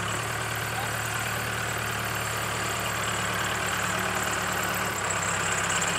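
Case backhoe loader's diesel engine running at a steady idle, its tone shifting slightly about five seconds in.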